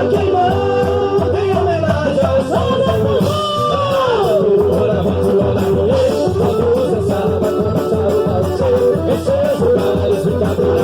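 Quadrilha junina music: a singing voice carrying a gliding melody over a band with a steady, even beat.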